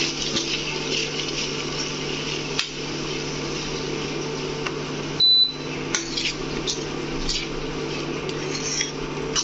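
Parwal sabzi cooking in a pan with a light sizzle over a steady mechanical hum, with scattered clicks of a spoon stirring against the pan. A short high beep sounds about five seconds in.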